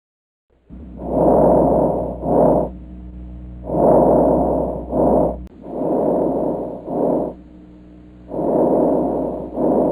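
Recorded breath sounds played as a teaching example of an abnormal breath sound: four breaths, each a longer rushing sound followed by a short one, about every two and a half seconds. A low hum runs under the first two breaths.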